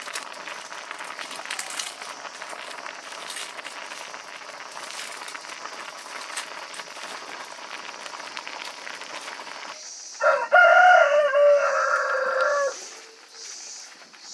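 Steady crackling and bubbling from a pot of milk and rice boiling over a wood fire. About ten seconds in, a rooster crows once, loudly, for over two seconds.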